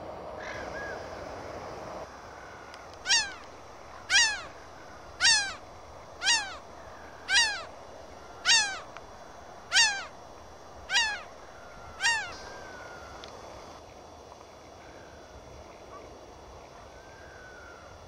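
A gull calling in an even series of nine loud cries, about one a second, each falling in pitch; a few fainter calls follow near the end.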